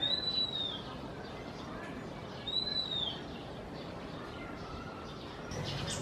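Oriental magpie-robin singing: a clear whistled note that arches up and falls away, given twice about two and a half seconds apart, with fainter bird notes under it. Near the end the background turns noisier.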